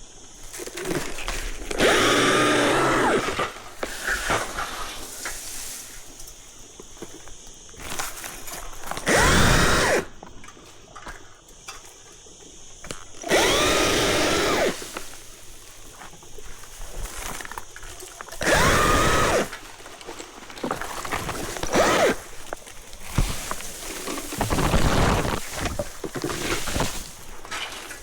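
Battery chainsaw running in about six short bursts, each a whine that rises and then falls away, as it cuts Callistemon (bottlebrush) branches.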